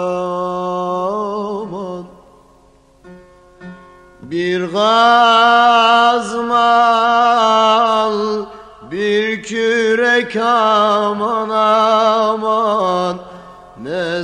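Turkish folk music: a male voice sings long, wavering held notes over bağlama accompaniment. About two seconds in the voice drops out for roughly two seconds, leaving a few quiet plucked notes, then comes back with a rising swoop.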